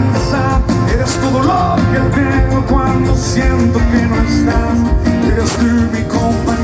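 A live band plays a Latin pop-rock song through a gap between sung lines, with a steady drum beat under pitched melody lines.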